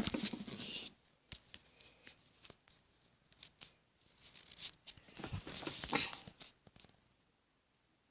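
Rustling and clicking handling noise as things are picked up and moved about, in two spells, with a near-quiet gap between them, stopping about a second before the end.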